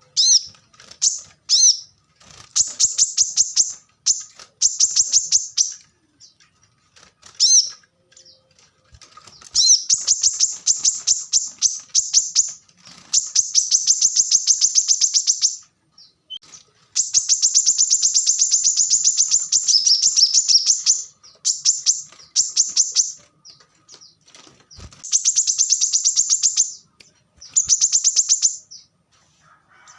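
Kolibri kelapa sunbird singing in bursts of rapid, evenly spaced high notes, the dense rapid-fire 'tembakan rapat' style. Each burst lasts from about a second to several seconds, with short pauses between.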